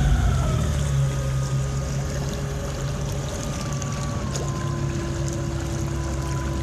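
Engine of a WaterCar amphibious vehicle running as it drives through the water, a steady low drone with a whine that slides and steps down in pitch, over the rush of water against the hull.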